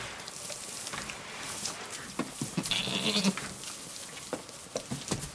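A goat bleats once, briefly, about three seconds in, among a few light clicks and knocks.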